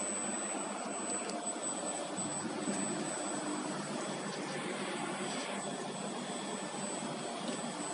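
Steady rushing hum of a running laser tube-cutting machine and its fans, with a thin high steady whine over it.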